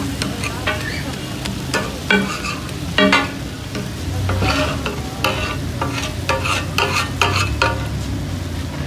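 Metal spatula scraping and clacking irregularly against a large flat tawa griddle as chicken is stirred and fried, with hot oil sizzling steadily underneath.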